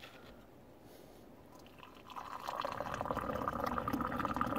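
Tea poured in a long stream from a raised metal teapot into a glass, starting about two seconds in: a steady splashing pour that grows louder as it goes.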